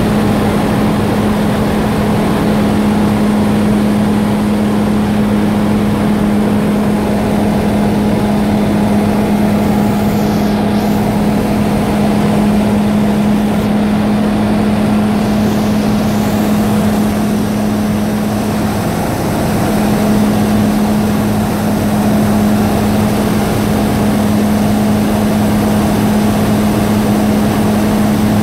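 Aeropro Eurofox light aircraft's engine and propeller droning steadily in cruise, heard from inside the cockpit: a loud, even drone with one strong low hum.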